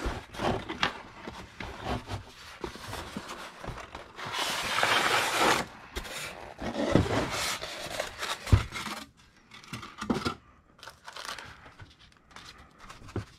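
Cardboard box, styrofoam packing insert and paper leaflet being handled during unboxing: irregular rustling, scraping and crinkling, with a longer scraping rush about four seconds in and a sharp knock past the middle.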